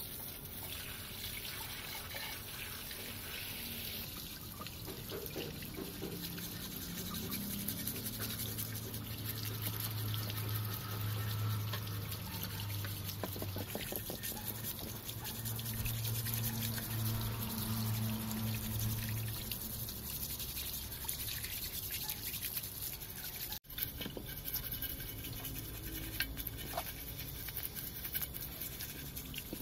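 Hose jet of water splashing over a rusty cast-iron diesel engine crankcase on concrete, with a brush scrubbing the casting. A low steady hum runs through the middle stretch.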